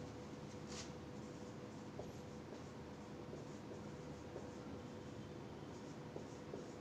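Whiteboard marker writing on a whiteboard: a run of faint, short strokes as words are written, over a faint steady hum.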